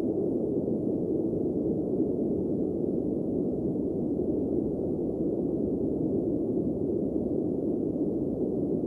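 Dark ambient drone: a steady, muffled noise rumble with no melody or beat.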